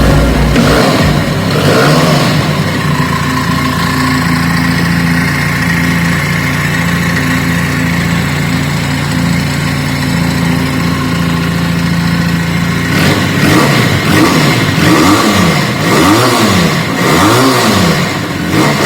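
Benelli TNT 250 two-cylinder motorcycle engine idling steadily, then revved in a run of quick throttle blips, the pitch rising and falling with each blip, about two-thirds of the way through.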